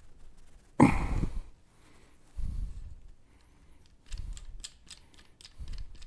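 A hand-lever valve spring compressor working a valve spring on a cylinder head: a loud knock about a second in, then a few duller thumps and light metal clicks as the spring is compressed and the retainer is seated.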